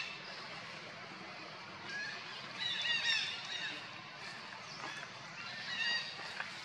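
Short, high-pitched animal calls in two clusters: a quick run of squeals around the middle and a few more near the end.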